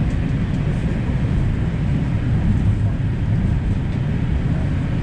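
Steady low rumble inside a Los Angeles Metro light rail car running along street track.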